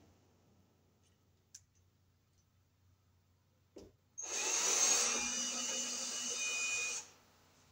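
Cordless drill/screw gun running for about three seconds, turning a sheetrock screw in the ceiling, with a steady motor whine that stops abruptly. A couple of faint clicks come before it.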